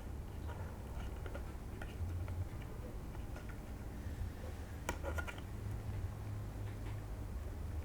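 Small plastic parts clicking and tapping as shafts are pressed into 3D-printed RC car suspension arms, with a couple of sharper clicks about five seconds in, over a steady low hum.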